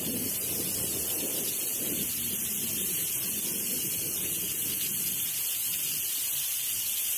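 Typhoon wind and torrential rain: a steady hiss of wind-driven rain with gusts buffeting the phone microphone, strongest in the first couple of seconds and then easing.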